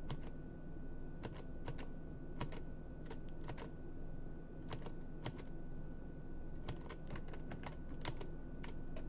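Computer keyboard keys clicking, scattered presses at irregular intervals, some in quick pairs, over a low steady hum.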